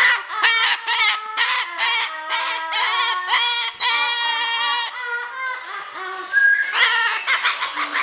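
Umbrella cockatoo singing: a rhythmic string of short, pitched, vowel-like calls, about two to three a second, with a brief break about six seconds in.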